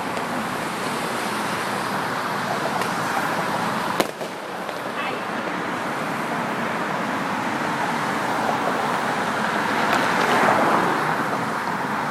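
Steady city traffic noise with a single sharp firework bang about four seconds in, and the traffic swelling briefly near the end.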